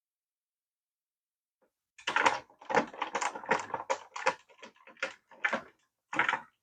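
Run of irregular clicks and short clatters, like small hard plastic parts of a toy RC car being handled and knocked together during disassembly. It starts about two seconds in, at roughly two to four a second.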